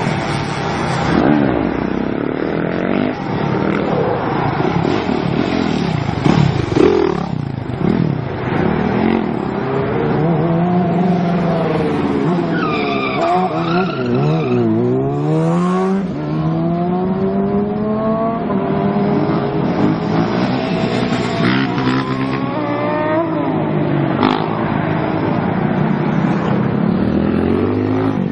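Motorcycle engine revving hard, its pitch climbing and falling again and again as the rider accelerates and backs off.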